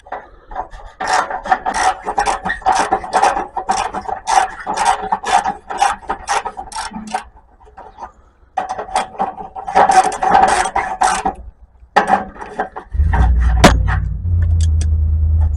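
Quick rasping back-and-forth strokes of a tool cutting at the exhaust pipe metal, to free the catalytic converter at its clamps and weld. There are about four or five strokes a second, in two runs with a short break about seven seconds in. Near the end a low steady hum starts.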